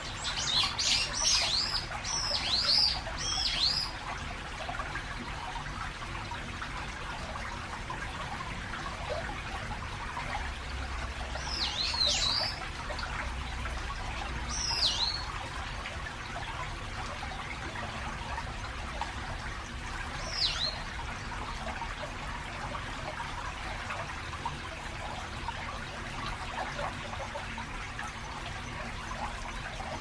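Shallow stream trickling steadily over its bed. Above it, a bird gives quick, falling high calls: a run of them in the first few seconds, then single calls at about 12, 15 and 20 seconds in. A low rumble of traffic from a nearby road bridge runs underneath.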